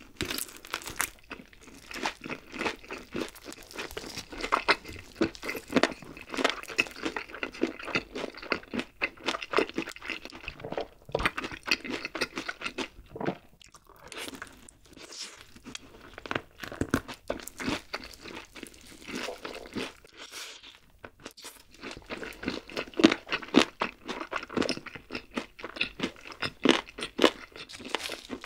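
Close-miked chewing of crispy fried chicken: a dense, irregular crunching of the crust with each bite, easing off briefly twice.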